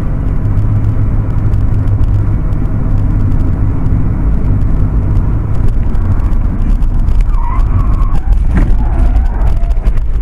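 Loud, steady motor vehicle rumble of engine and road noise, with a short higher, wavering sound and a sharp knock a little over eight seconds in.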